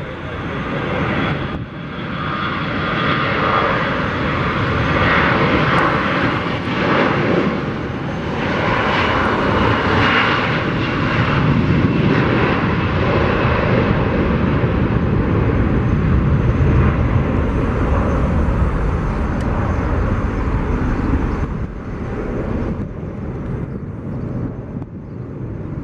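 Airbus A321's CFM56 turbofan engines at takeoff power: a loud, steady jet noise with a faint whine, building over the first few seconds as the airliner rolls down the runway and climbs away, easing off a little near the end.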